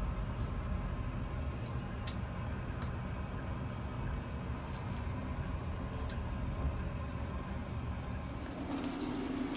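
Low, steady rumble of a bus engine heard from inside the cabin as the bus moves slowly toward its bay, with a few faint clicks. A low hum joins near the end.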